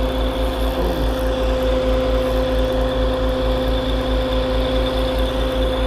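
Sand-dredging machine's engine running steadily: an even drone with a low, regular throb.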